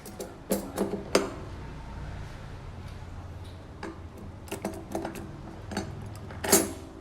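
Steel sprockets and spacers of a Shimano 105 11-speed cassette clicking and clinking as they are slid one by one onto a bicycle freehub's splines. A few sharp metal clicks come about a second in and more in the second half, the loudest near the end.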